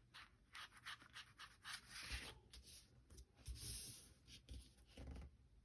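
Faint paper rustling and rubbing by hand, a run of short scrapes with one longer rub past the halfway mark, stopping about five seconds in.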